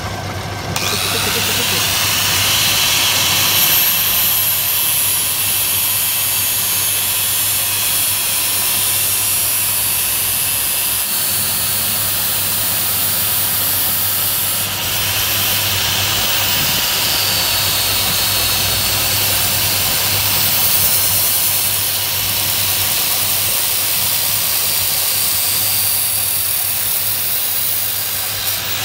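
Angle grinder grinding the surface of a rear axle shaft as it turns in a lathe, a steady loud grinding hiss starting about a second in, over the lathe's constant motor hum.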